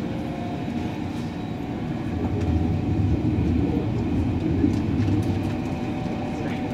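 Berlin S-Bahn electric train running at speed, heard from inside the carriage: a steady low rumble of wheels on the track with a faint steady whine and a few light clicks.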